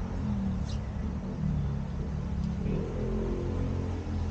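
A motor vehicle engine running with a steady low rumble whose pitch wavers slightly, and a faint click a little under a second in.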